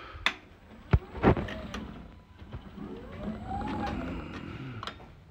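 Electric walkie pallet truck: a few sharp clicks and knocks from its controls, then its electric drive motor whining up and back down in pitch as the truck moves off and slows.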